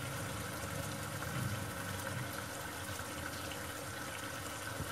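A thickened fish-sauce and sugar glaze simmering steadily in a nonstick frying pan around fried tilapia.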